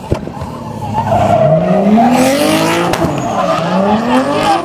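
BMW drift car's engine revving hard while the car slides sideways, its tyres squealing. The engine pitch climbs from about a second in, drops back near three seconds, then climbs again.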